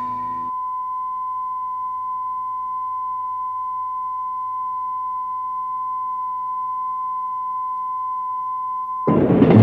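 A steady, pure test tone, like a reference beep, holding one pitch at an even level without a break. It cuts off suddenly near the end as louder noise comes in.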